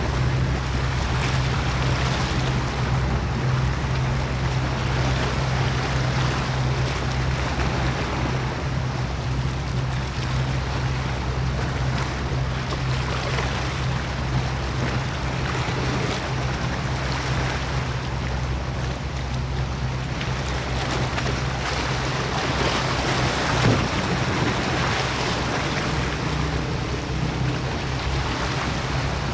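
Steady low drone of a ship's engine, with wind and water noise rushing over it.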